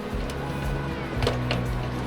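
Background music with held, slowly changing notes. Two short clicks come a little past the middle.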